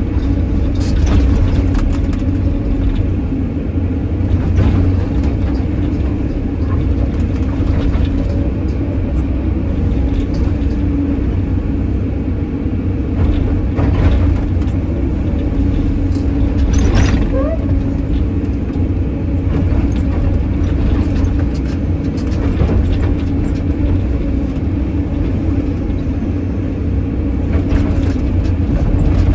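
Caterpillar 320D excavator's diesel engine and hydraulics running steadily under load, heard from inside the cab, as the bucket rakes and spreads crushed-stone fill. A few short scrapes and knocks from the bucket in the stone rise above the engine now and then.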